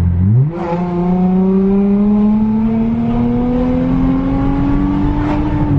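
2019 Chrysler 300's engine heard from inside the cabin under hard acceleration, with stock throttle response (pedal box off). The revs jump up quickly as the throttle opens, then the note climbs slowly and steadily as the car pulls, and drops near the end.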